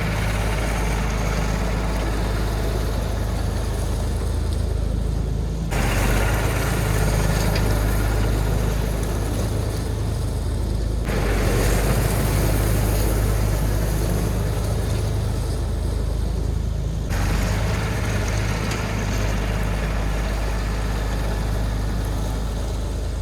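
Engine-driven pressure washer running steadily, its motor humming low under the loud hiss of the water jet, in a few segments that cut abruptly from one to the next.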